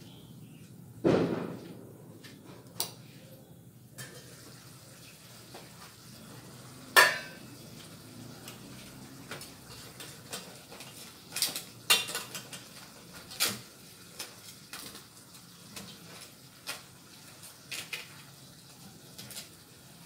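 A metal pan lid clanking against a stainless frying pan, sharply about a second in and again about seven seconds in, then metal tongs clicking and scraping against the pan as crab pieces are turned over.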